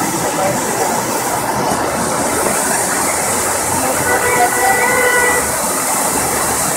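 Dense, steady rush of a violent rainstorm, heavy rain and strong wind together, with a faint held high tone about four seconds in.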